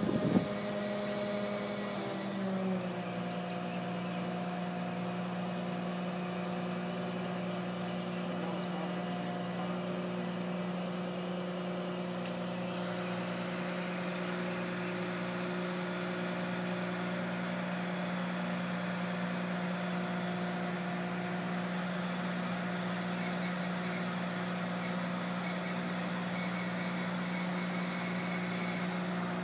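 Mobile crane's engine running steadily under load, its pitch dipping slightly about two and a half seconds in.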